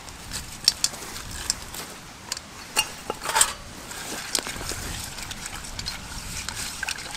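Light clinks and knocks of metal camping cookware being handled, a pan lid and small pot, with a short rustle near the middle.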